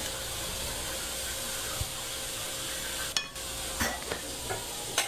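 Kitchen sounds while food is served: a steady hiss, then a few light clinks and knocks of cutlery on plates and dishes in the last couple of seconds.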